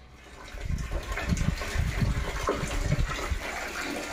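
Water gushing and splashing, starting about half a second in and going on unevenly with surges.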